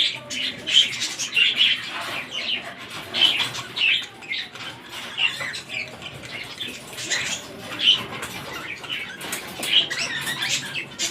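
Cockatiels giving a string of short, irregular chirping calls, a few each second.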